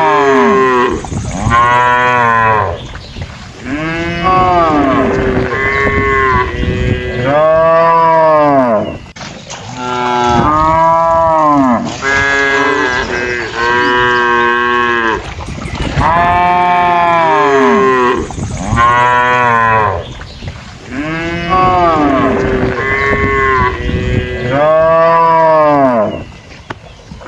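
Cattle mooing over and over, one loud call after another, each rising and then falling in pitch, with calls at different pitches often overlapping, as from several cows at once.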